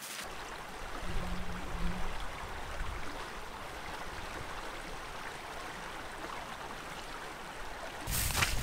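Shallow river flowing and rippling over rocks, a steady rush of water. Near the end, a louder rustle of footsteps through grass.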